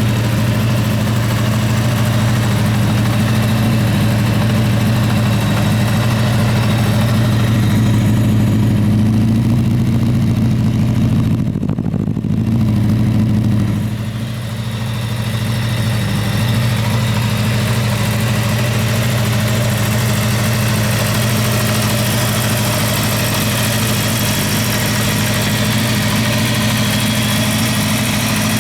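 Kawasaki Zephyr 550 (ZR550-B2) air-cooled inline-four motorcycle engine idling steadily, with a short dip in level about halfway through.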